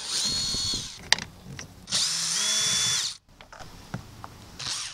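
Cordless drill-driver backing out the Phillips screws of a truck door panel. Its motor runs twice with a steady whine, about a second each: once at the start and again about two seconds in.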